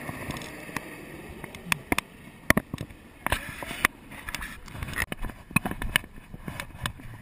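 Irregular knocks, clicks and rustling from gear, footsteps in dry brush and a gloved hand bumping a helmet-mounted camera, with a rough background rumble.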